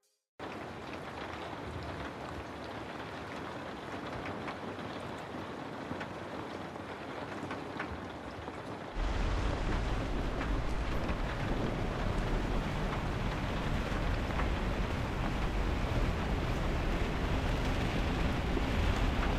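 Rain pattering steadily on a sailboat's windscreen, with many small drop ticks. About halfway through it gets louder, and heavy wind noise joins the rain.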